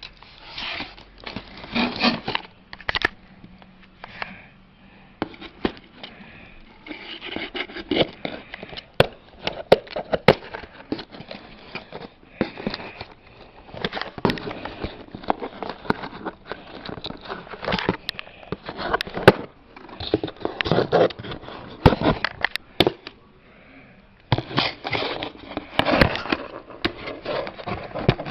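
Cardboard and plastic toy packaging being handled as a doll is worked out of its box: irregular crackling, rustling and scraping with many sharp clicks.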